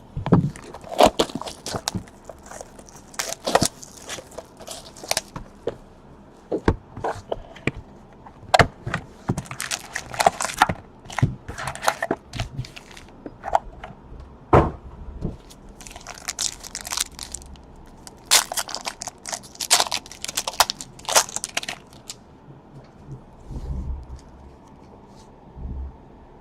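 Trading-card pack wrappers being torn open and crinkled, with cards handled, in a run of sharp rips and crackles that die away about 22 seconds in.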